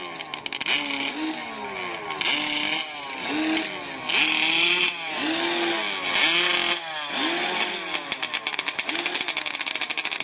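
A high-revving sand drag racing engine blipped over and over, the revs climbing and dropping about once a second, with a few longer bursts held near full throttle in the middle. Near the end it falls back to a fast, choppy idle.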